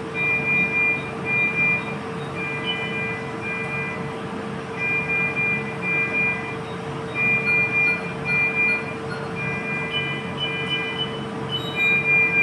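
Short high electronic beeps in runs of two or three, repeating every few seconds over a steady hum.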